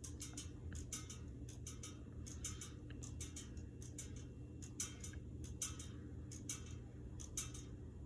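Minka Aire Carmel ceiling fan running with a low steady hum and a light, regular ticking about twice a second.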